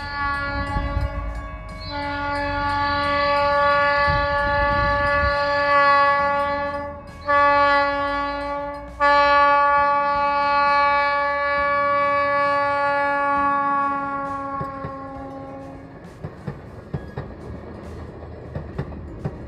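Budd RDC railcar's horn sounding a chord in four blasts, long, long, short, long: the standard grade-crossing signal. After the horn stops, the wheels click faintly over the rail joints as the cars roll past.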